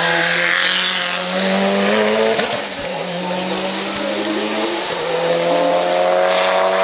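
Hill-climb race car engine at full throttle, climbing in pitch and shifting up twice, about two and a half seconds apart, the note dropping at each gearchange.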